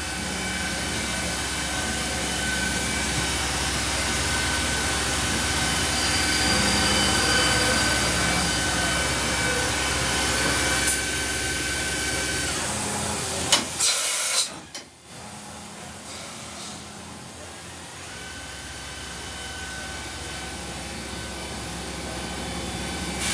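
Mazak 410B-II CNC vertical machining center running: a steady whirring hiss over a low hum, with a faint high whine. A few sharp clicks come a little past halfway, then the hum cuts out and the sound drops quieter for a few seconds before building back up.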